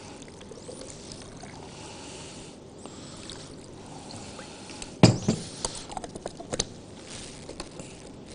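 Water pouring from a plastic jug into a blender jar of cut fruit, a faint steady pour. About five seconds in comes a sharp knock, then a few lighter clicks of plastic being handled at the blender.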